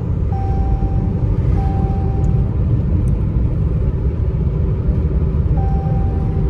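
Steady road and engine rumble inside a moving car's cabin, with a faint thin tone that comes and goes about a second at a time.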